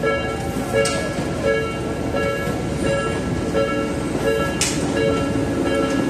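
Japanese railway level-crossing alarm ringing its repeating electronic ding, about once every 0.7 seconds, over a steady rushing noise. A few sharp clicks cut through, the loudest just before the end.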